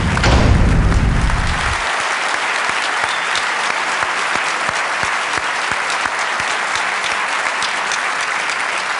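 Large conference-hall audience applauding steadily throughout, with a low rumble under the clapping for about the first two seconds.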